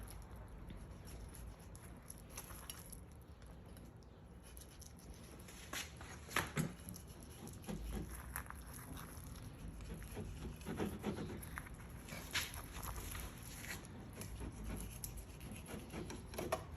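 Fillet knife slicing along a rainbow trout's backbone and ribs, with faint scattered clicks and crunches as the blade passes over the bones. The clicks come more often from about six seconds in.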